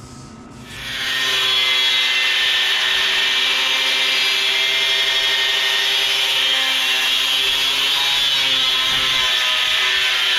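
Electric angle grinder spinning up about a second in, then running steadily against steel with a continuous hiss.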